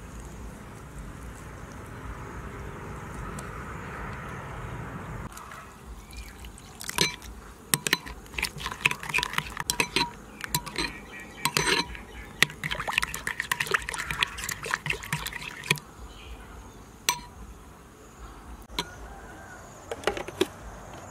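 Liquid poured steadily into a bowl of chopped garlic and chili, stopping about five seconds in. Then a metal spoon stirs the sauce, clinking against the bowl many times in quick irregular runs.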